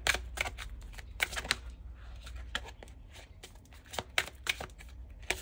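A deck of tarot cards being shuffled by hand, the halves worked together in a dense, irregular run of short crisp card clicks and flicks.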